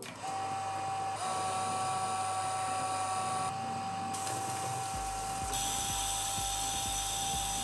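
FS-1501 punched paper tape reader running, its drive motor giving a steady hum and high whine. About four seconds in, the start electromagnet is energised and the paper tape is pulled through at high speed. A regular low ticking, about twice a second, begins about five seconds in.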